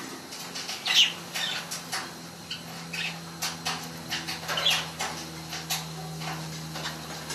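Budgies bathing in water: a run of quick splashes and wing flutters, with a couple of short high chirps, one about a second in and another near the middle.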